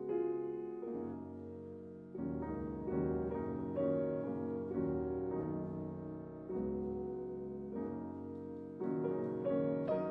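Slow piano music: single notes and chords struck and left to ring, a new one every second or so.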